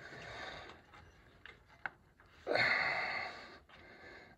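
A heavy exhale of effort, a breathy hiss about a second long that fades out, after a faint click about two seconds in.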